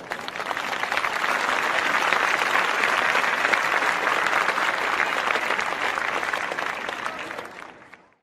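Crowd applause: many people clapping, starting abruptly, holding steady and fading out over the last second.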